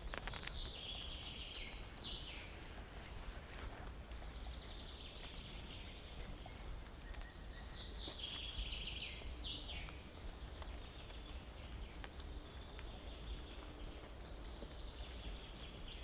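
A songbird singing a fast phrase of notes that steps down in pitch, about two seconds long, three times roughly seven seconds apart, the last one fainter. Faint footsteps sound under it.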